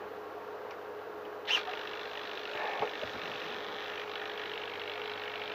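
Small hobby servo whirring faintly as a servo tester drives it, to check whether its control horn clears the wing cutout; a single click about one and a half seconds in.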